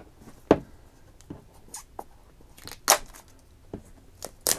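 Plastic wrap on a boxed phone being picked at and torn, heard as a few short, sharp crackles and taps. About half a second in there is a knock as a folding knife is set down on the wooden table.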